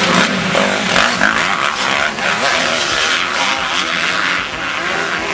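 Several off-road dirt bike engines revving hard as a pack of motorcycles races past, their pitches rising and falling as the riders open and close the throttle.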